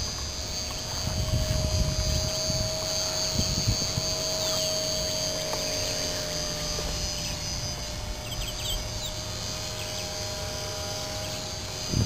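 Electric motor and propeller of a Carl Goldberg Husky 400 radio-controlled park-flyer plane, a steady whine as it flies overhead, with low wind rumble on the microphone.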